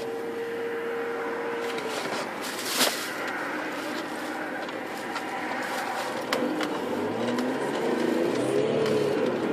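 Road and engine noise inside the cabin of a moving Audi A4 Avant TDI, with a sharp knock about three seconds in.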